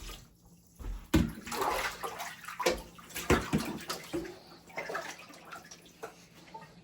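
Water splashing and sloshing in irregular surges.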